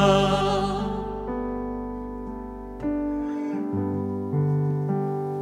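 A held sung note fades out in the first second, then a keyboard plays soft sustained chords, a new chord coming in about every one and a half seconds.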